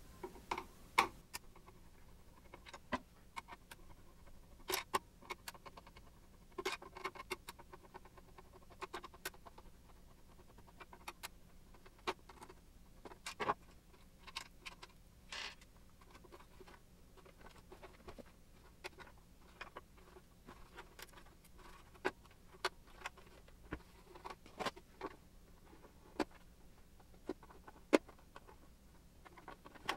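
Irregular clicks, taps and scratching as the plastic housing of an Airfree Onix 3000 air purifier is handled and taken apart, with a few sharper clicks among them.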